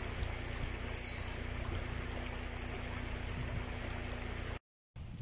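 Rainwater flooding a street, flowing as a steady watery hiss with a low hum under it; the sound drops out for a moment near the end.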